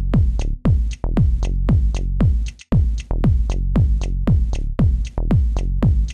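Electronic dance music with a heavy kick drum on a steady beat and ticking hi-hats; the music drops out for a moment about halfway through.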